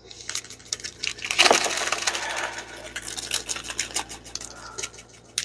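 Plastic-sleeved packs of paper ephemera crinkling and rustling as they are handled and flipped through in a storage box, with many irregular clicks and crackles.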